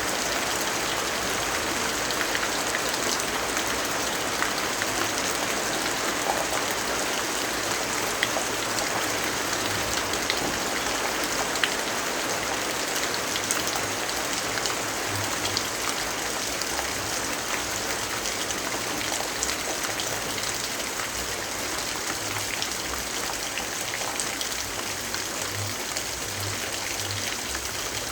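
Steady rainfall, an even hiss with scattered small tapping drops.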